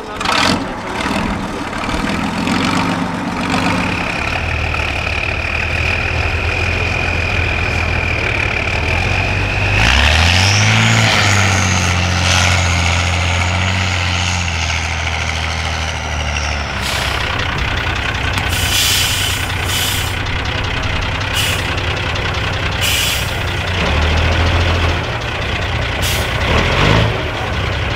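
Diesel engines of off-road trial trucks running at low speed under load, one revving up about ten seconds in with a high whine that climbs with it. Short bursts of hiss come several times in the second half.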